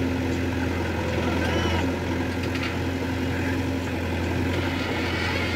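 JCB backhoe loader's diesel engine running steadily with a low drone while the backhoe arm digs mud.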